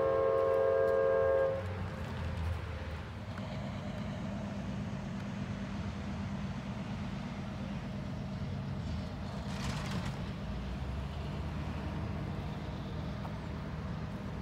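CSX GE AC44CW diesel locomotive's air horn sounding a loud multi-note chord that cuts off about a second and a half in, blown for the grade crossing. Then the approaching train's steady low rumble.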